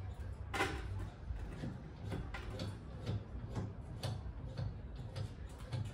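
A run of light clicks and knocks, about two a second and unevenly spaced, the loudest about half a second in, as metal seat-frame parts and bolts are handled and fitted.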